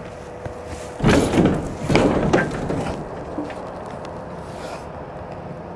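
Rear door of a semi trailer being pulled open: a loud rattling, scraping clatter lasting about two seconds, starting about a second in, over a steady background hum.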